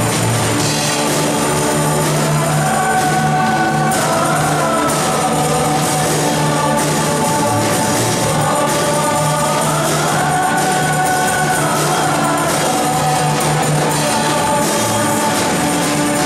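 Contemporary worship song played live by a band of electric guitars, bass guitar, drums and keyboard, with a group of women singing the melody together into microphones.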